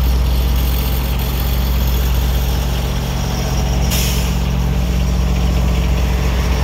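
The engine of a Hydrog ZSK-500 crack and joint sealing machine running steadily at a constant low pitch, with one brief hiss about four seconds in.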